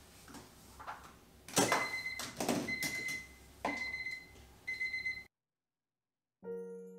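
Electronic timer beeping four times, about a second apart, with knocks and rustling of a window being handled; it cuts off suddenly, and soft background music starts near the end.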